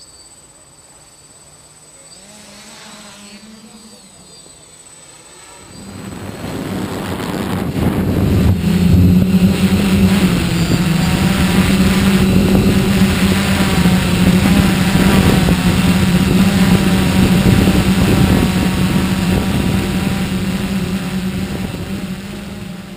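Multirotor camera drone's propellers running: a steady hum with many overtones, faint at first, which gets much louder about six seconds in and stays loud.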